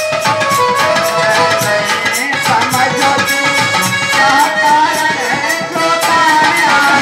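Live traditional Indian folk accompaniment music: held, steady melody notes over regular hand-drum strokes of the tabla kind. A wavering melodic line comes in about halfway through.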